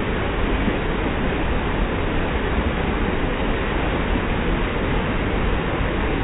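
Muddy flash-flood water rushing and churning down a rock channel in a steady, loud roar.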